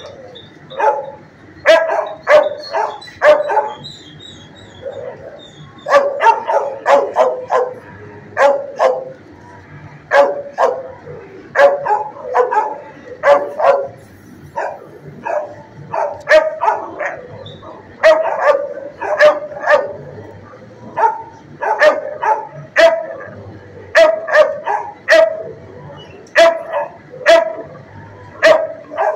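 Shelter kennel dog barking in repeated clusters of sharp, loud barks, several at a time with short pauses between, with a brief lull about four seconds in.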